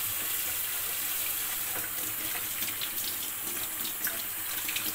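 Kitchen tap running steadily, a constant rush of water into the sink.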